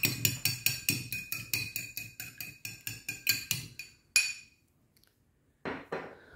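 A fork beating a raw egg in a small glass bowl, the tines clinking against the glass in a fast, even rhythm of about five or six strokes a second. The beating stops about four seconds in with one louder clink.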